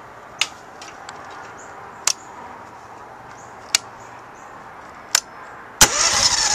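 Four sharp clicks, then the electric starter of a small gas engine cranks loudly for about a second and a half near the end. The engine does not catch, and the owner thinks it needs a little choke.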